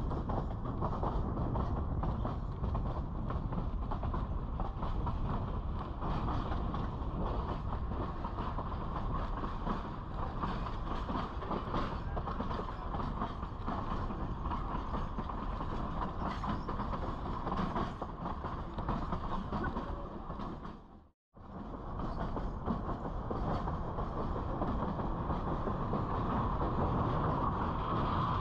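Durango & Silverton narrow-gauge train rolling along the track: a steady rumble of wheels on rail. It breaks off for an instant about three-quarters of the way through.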